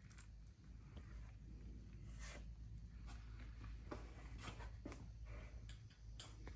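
Faint, scattered small knocks and scrapes of wooden boards being handled while they are dry fitted for glue-up, over a low steady hum.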